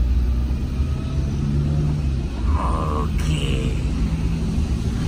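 Maruti Zen hatchback driving along a road: steady engine hum and low road rumble. A short vocal sound comes over it about two and a half seconds in.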